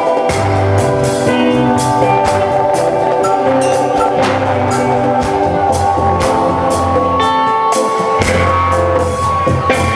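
Live band playing: hand drums keep a steady beat of about three strokes a second under bass guitar and sustained keyboard chords.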